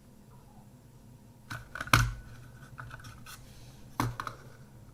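Small parts being handled on a work surface: a few sharp clicks and knocks, the loudest about two seconds in, with light scraping between them.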